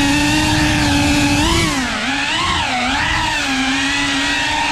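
Cinewhoop FPV drone's motors and ducted propellers whining, the pitch holding steady and then dipping and rising several times in the second half as the throttle is eased off and pushed again.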